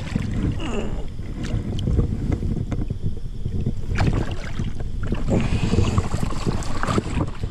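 Water splashing and sloshing as a flathead catfish is landed by hand in shallow water, with scattered clicks of handling and wind buffeting the microphone.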